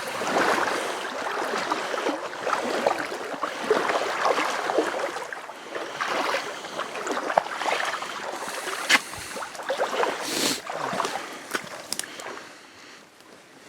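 People wading through deep water, continuous sloshing and splashing around their legs with each stride, dying down near the end.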